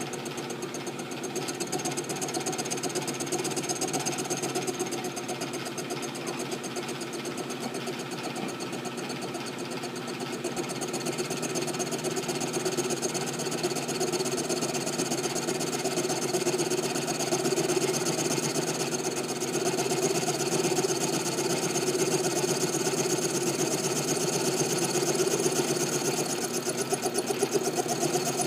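Machine tool running steadily with a fast, even rattle while cutting slots into an M1911 pistol slide; it grows a little louder partway through.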